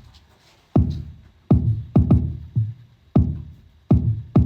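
A programmed Afrobeats kick drum pattern playing on its own: electronic kicks, each a short click followed by a deep boom that dies away. About seven hits fall in an uneven, syncopated rhythm, and one near the middle is softer.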